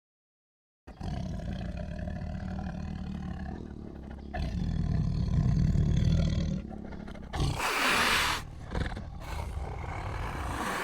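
A big cat roaring, a deep rumbling sound that starts abruptly about a second in and is loudest just past the middle, with a short harsh, noisy burst near the end.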